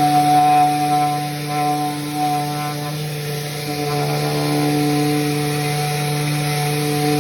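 Electric sander running steadily on a cabinet door, giving an even motor hum.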